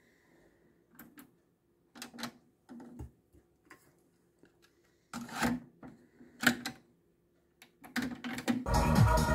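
Sharp mechanical clicks and clunks from a Teac W-600R double cassette deck as the deck I cassette door is opened, a tape is loaded, the door is shut and the play button is pressed. Near the end the transport engages and music from the tape starts playing.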